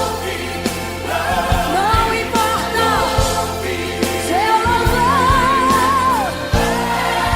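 Brazilian gospel song: a voice sings long, wavering notes, holding one with vibrato about halfway through, over a steady band accompaniment.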